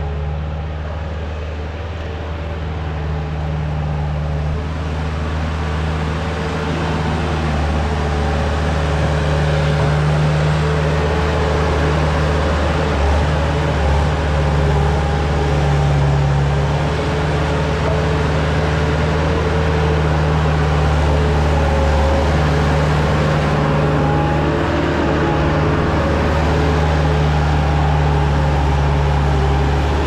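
Bobcat skid-steer loader engine running steadily under work, a constant mechanical hum that firms up a little over the first few seconds.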